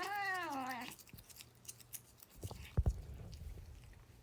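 A cat's meow, rising and then falling, during a tooth brushing. It is followed by quick small clicks and scrapes of a toothbrush working on the cat's teeth, with one low thump a little before three seconds in.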